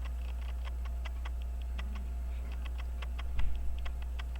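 Light rapid ticking, about four to five small clicks a second, from an Elgin pocket watch movement as its balance is set swinging to test whether it moves freely. A soft knock about three and a half seconds in, over a steady low hum.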